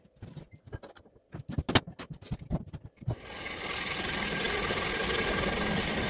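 Several clicks and knocks as the diesel heater's metal burn chamber is handled and set up. About three seconds in, a small power tool starts and runs steadily, cutting the burn chamber open so the carbon build-up inside can be cleaned out.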